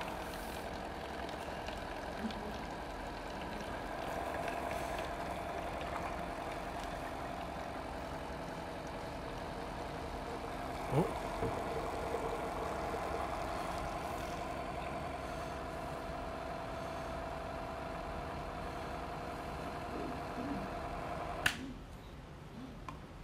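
A small electric sampling pump runs steadily, pushing water through an in-line filter to fill a sample bottle. There is a brief knock about halfway through. The pump cuts off suddenly with a click near the end.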